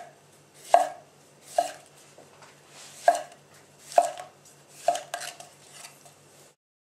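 Freshly sharpened chef's knife slicing through a tomato, the blade knocking sharply down onto the cutting board about six times, roughly a second apart.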